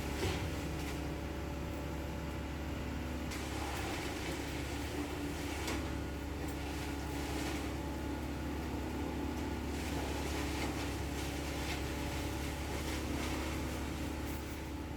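A large engine of the tree-removal machinery running steadily at a constant speed, with a few faint clicks and knocks over it.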